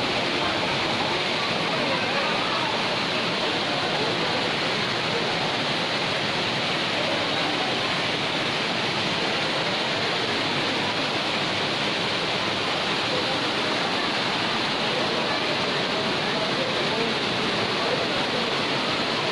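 Steady rush of heavy rain and rainwater runoff pouring in torrents down a paved stairway and rocky slope.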